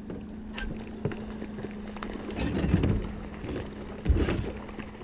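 Water slapping and splashing around a small boat, over a steady low hum. The splashing is loudest twice, about two and a half and four seconds in.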